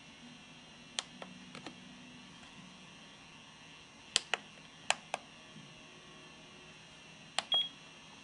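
Walkera WK-2402 radio transmitter's menu keys clicking as they are pressed, in quick pairs a few seconds apart; the last pair, near the end, comes with a short high beep from the transmitter.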